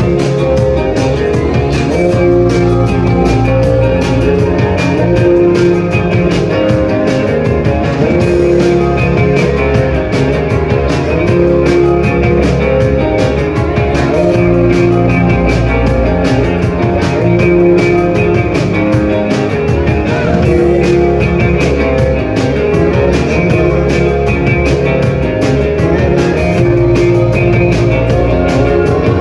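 Live rock band playing a song: guitars over a steady drum-kit beat, loud and continuous, just after a four-count start.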